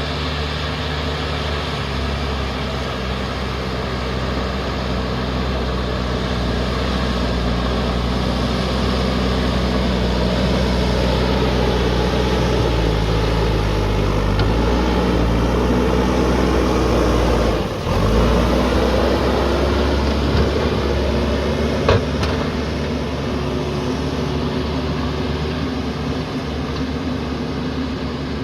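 JCB backhoe loader's diesel engine running, its pitch shifting up and down partway through as the revs change. There is a brief drop in level and, a few seconds later, a single sharp click.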